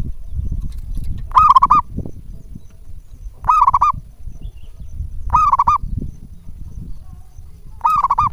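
Local zebra dove (perkutut) calling: four short, quavering coos, each a quick run of pulses, about two seconds apart.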